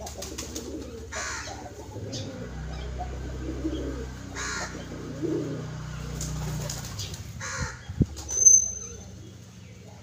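Domestic pigeons cooing as they feed at a man's feet. A crow caws a few times in the background, and a brief high chirp stands out about eight and a half seconds in.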